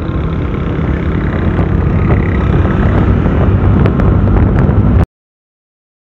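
Riding noise on a Yamaha Aerox scooter: wind rushing over the handlebar-mounted microphone together with the scooter's engine running, growing steadily louder. It cuts off suddenly about five seconds in.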